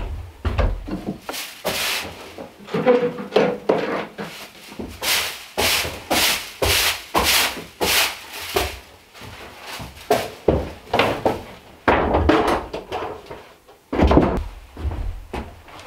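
A hand tool worked on wood in rapid back-and-forth strokes, about two a second, with a few dull knocks in between.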